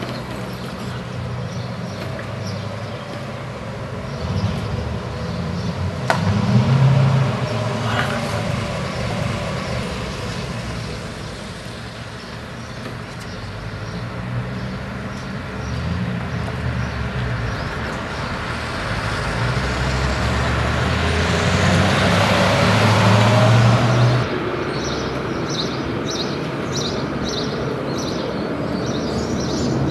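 City street traffic: motor vehicles running and passing, with one passing vehicle growing louder about two-thirds of the way through and then dropping away.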